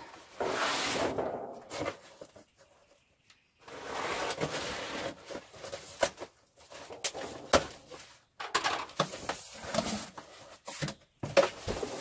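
A large cardboard box being cut open with scissors: two long stretches of cutting and scraping along the taped seams, then a run of sharp knocks and rustles as the cardboard flaps are pulled back.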